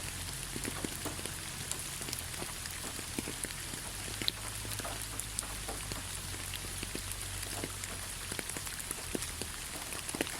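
Steady rain falling, with many scattered individual drops ticking and a constant low rumble underneath.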